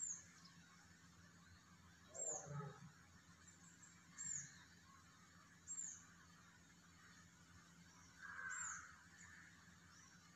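A bird's short, high-pitched chirp repeats every couple of seconds against a faint background. Two brief, lower, softer sounds come in: one a couple of seconds in and one near the end.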